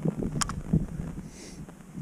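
Low wind and handling rumble on the microphone, with one sharp click about half a second in and a few soft thuds just after.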